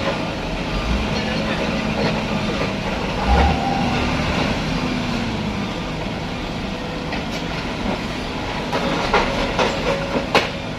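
Heavy truck running, with a steady engine hum and body clatter, and a cluster of sharp knocks near the end.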